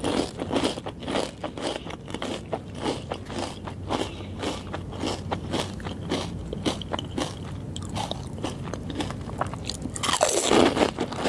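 Close-up crunching and chewing of pani puri, the crisp hollow puris cracking between the teeth in quick irregular crackles, with a louder bite about ten seconds in.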